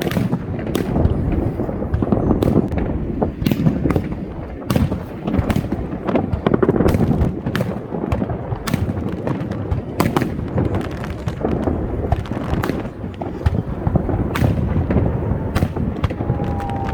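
Fireworks display: a continuous low booming rumble of shell bursts, with many sharp cracks and bangs at irregular intervals.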